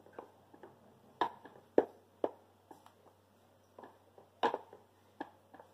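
Wooden spoon stirring a thick mango-yogurt mixture in a glass bowl, knocking against the glass in irregular sharp clicks, a few of them louder.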